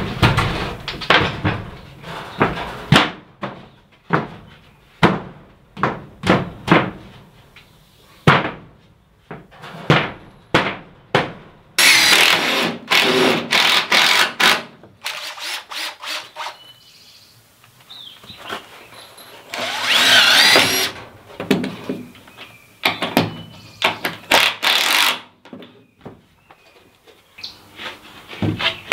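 Cordless drill driving screws into a plywood door and its wooden frame, in two runs of a few seconds each, the motor whine rising and falling. Around them, a quick series of sharp knocks on wood.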